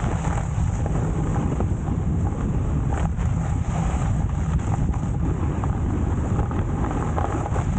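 Steady wind rumble buffeting the microphone, with a few brief sharper noises.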